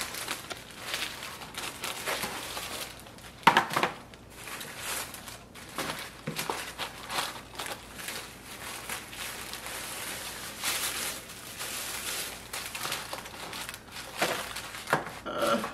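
Crinkling and rustling of packaging as a pair of sandals is worked into a box, in irregular handling strokes, with one louder knock about three and a half seconds in.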